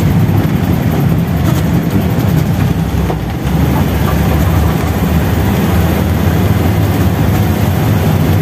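Volkswagen 1200 cc air-cooled flat-four engine running steadily under load as the car climbs a hill, heard from inside the cabin, with a brief dip in level about three seconds in.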